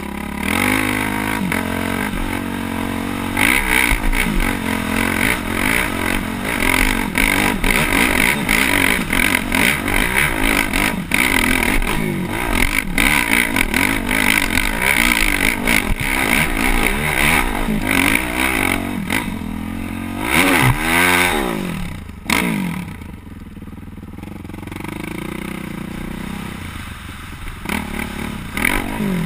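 Yamaha YZ450F four-stroke single-cylinder dirt bike engine revving hard and unevenly under load on a steep climb, heard from a camera on the bike, with many sharp knocks and clatter from the bike over rough ground. About two-thirds of the way through it revs up sharply once, then the throttle is rolled off and it runs more quietly at low revs before picking up again near the end.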